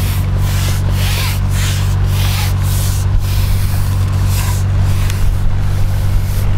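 Steady low diesel engine hum of a passing canal boat, with a hiss above it that swells and fades about twice a second.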